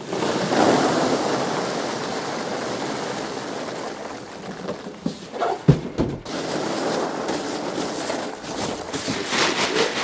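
Foam packing peanuts pouring from a plastic bag into a cardboard box, a steady rushing rustle. A single short thump comes a little past halfway, then the pouring resumes, growing crackly near the end.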